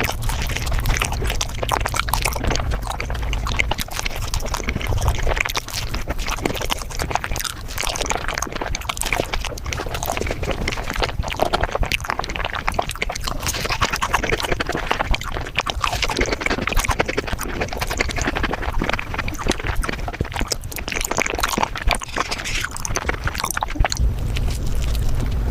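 Close-miked eating sounds of mango desserts played back greatly sped up: a dense, unbroken run of quick wet mouth clicks, chewing and slurping that comes out high and chattering.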